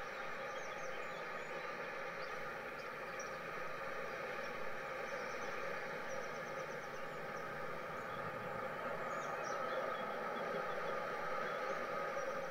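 N gauge model train running past on its track: a steady whir from the locomotive's motor and the wheels rolling on the rails, with faint high chirps now and then.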